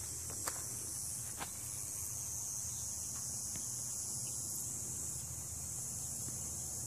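Steady, high-pitched chorus of insects, with a low steady rumble underneath and two faint clicks in the first second and a half.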